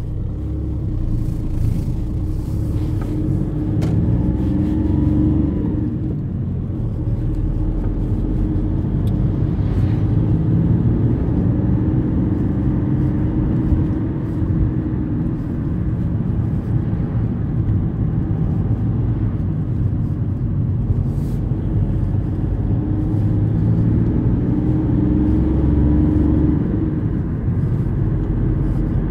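Engine and road noise of a Volkswagen car heard from inside the cabin as it pulls away from a standstill and drives on. The engine note rises as it accelerates, and rises again later in the drive.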